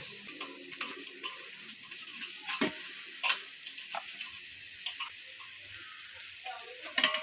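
Onion-tomato masala sizzling steadily in a large aluminium pot as raw chicken pieces are added to it for biryani. A few sharp clicks and knocks sound over the sizzle.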